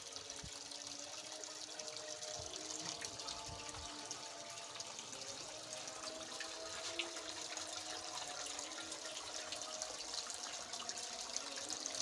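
Water trickling and splashing steadily down a homemade tiered fountain, pouring from a painted jug's spout through a cascade of stacked painted pots into the basin below.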